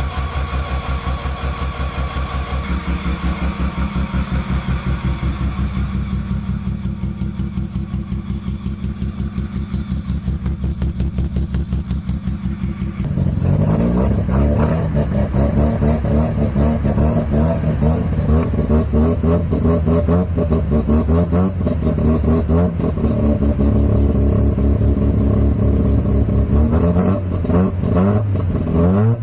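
Mazda 12A rotary engine idling with a fast, even, choppy pulse. About 13 seconds in it cuts to a louder 12A idling, with quick rev blips near the end.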